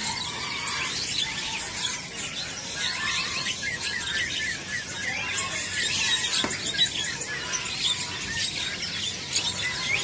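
Many caged songbirds chirping and twittering together, a dense mix of short, high calls overlapping without a break.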